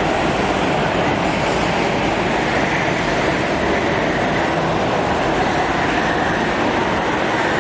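Several small go-kart engines running together on an indoor track, a steady loud drone whose pitch rises and falls a little as the karts accelerate and brake through the corners.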